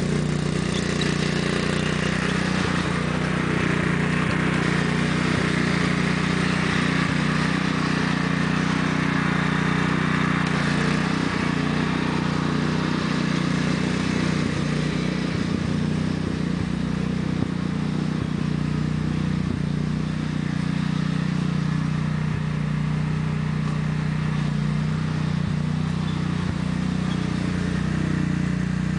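A 1993 Sears Craftsman lawn tractor's 14 hp Kohler single-cylinder engine running at a steady, unchanging pitch as the tractor drives over rough ground.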